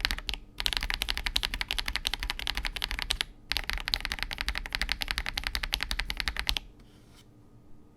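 Fast, continuous typing on a KBD67 Lite R3 mechanical keyboard fitted with Akko CS Vintage White switches, a dense run of key clicks with brief breaks about half a second and about three seconds in. The typing stops about six and a half seconds in, leaving a faint hiss and a faint steady hum.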